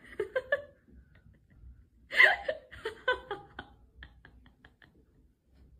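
Short bursts of a person's voice, loudest about two seconds in, followed by a few light clicks.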